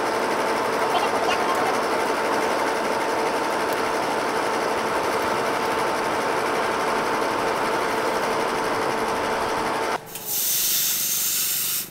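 Charcoal forge's air blower running steadily with a faint whine. About ten seconds in it stops, and a red-hot steel knife blade is quenched in a tank of water, hissing for about a second and a half.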